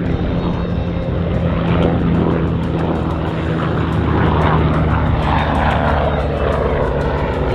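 MBB Bo 105 helicopter flying aerobatics, its turbine engines and rotor making a steady drone.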